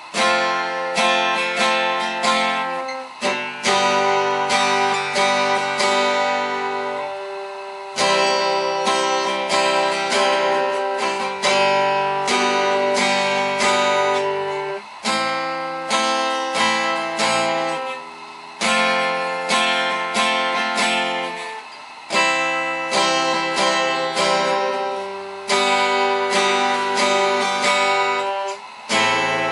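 Acoustic guitar played solo, chords strummed in phrases of a few seconds each, the notes ringing on between strums.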